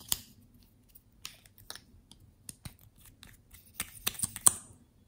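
Small plastic tubes and caps being handled by hand: a series of sharp plastic clicks and taps. The clicks come close together and loudest about four seconds in.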